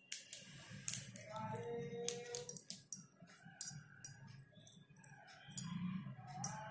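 Bangles and metal artificial jewellery clinking and jingling in a handful of short, scattered chinks while being handled. Faint music plays underneath.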